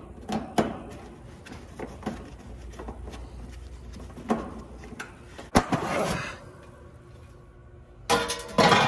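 Hand nut driver turning sheet-metal screws out of an A/C condenser's cabinet panel: irregular clicks and ticks of the driver on the screw heads and metal. A sharp metallic knock comes about five and a half seconds in, followed by a short scrape, and a louder rustling, scraping noise starts near the end.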